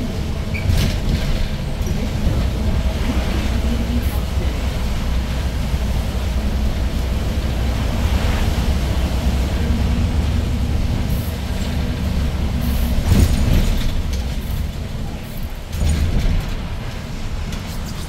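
Daewoo NEW BS090 city bus on the move, heard from inside the cabin: its GL08P CNG engine running under way, with tyres hissing on a wet road.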